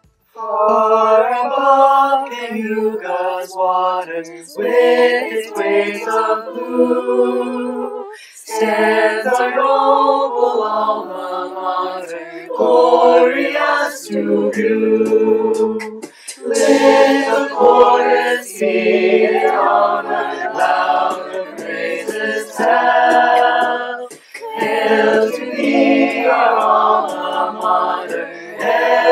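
A cappella choir singing in long phrases, the voices holding notes with vibrato and pausing briefly between lines.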